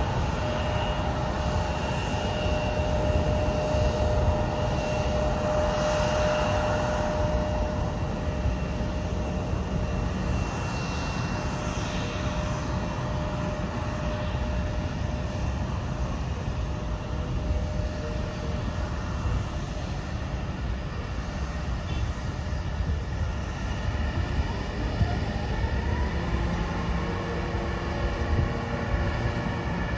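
Embraer 170 regional jet's CF34 turbofan engines heard from a distance while it taxis: a steady engine whine over a low rumble. Near the end a rising tone comes in, with new steady tones after it.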